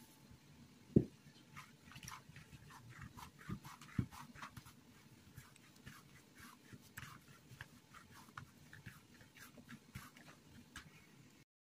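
Hands kneading soft yeast bread dough, in a bowl and then on a tabletop: a run of small sticky clicks and squelches, with a few dull thumps, the loudest about a second in.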